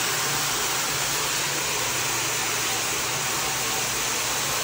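Rug-washing equipment running with a loud, steady rushing hiss.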